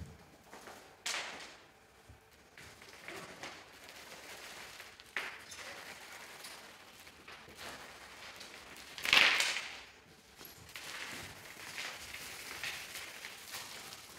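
Dancers' bodies and hands sliding and scraping on a studio floor, scattering small loose pieces across it in irregular rustles and scrapes, the loudest a short sweep about nine seconds in.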